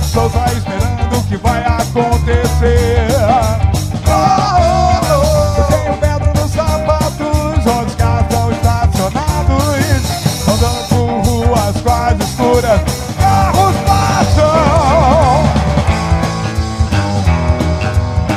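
1980s-style rock song with a ska feel in an instrumental stretch: a lead melody over a steady drum beat and bass, its pitch wavering and bending about fifteen seconds in.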